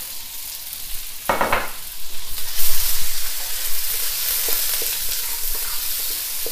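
Sliced onion with garlic and ginger sizzling in hot oil in a wok as it is stirred with a wooden spatula. There is a brief knock a little over a second in, and the sizzle grows louder about two and a half seconds in.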